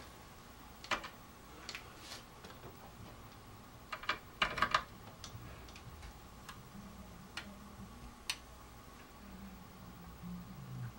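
Scattered small plastic and metal clicks and taps as an audio cable plug is pushed into a CD player's socket and the chassis is handled, with a quick cluster of clicks about four to five seconds in.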